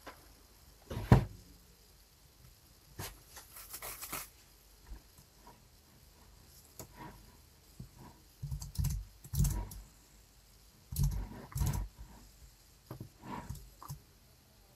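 Computer keyboard keystrokes and mouse clicks, a few at a time with pauses between them.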